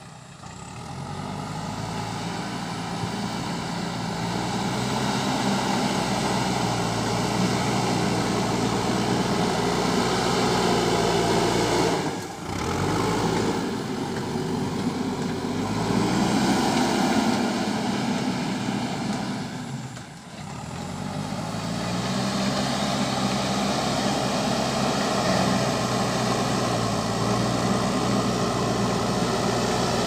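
JCB 3DX backhoe loader's diesel engine running and revving under load as the machine drives forward and pushes soil with its front loader bucket. The engine note rises and falls repeatedly, and the sound drops away briefly twice, about twelve and twenty seconds in.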